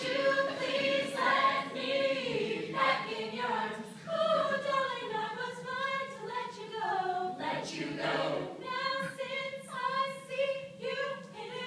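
Mixed-voice a cappella group of men and women singing together without instruments, several sustained chords moving from one to the next.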